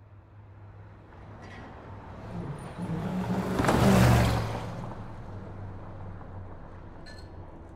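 A van driving past on the road, its engine and tyre noise swelling to a peak about four seconds in and then fading away.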